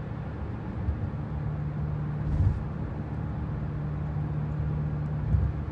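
Steady drone of a moving car heard from inside the cabin: a low engine hum with road noise.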